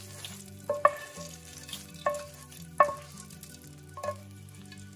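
Spatula knocking and scraping against a ceramic-coated pan while tipping out a hot oil tempering of peanuts, chillies and curry leaves onto rice: four sharp ringing taps about a second apart.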